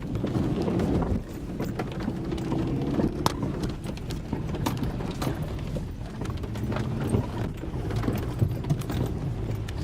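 Car engine running low and steady, with scattered sharp clicks and knocks over it.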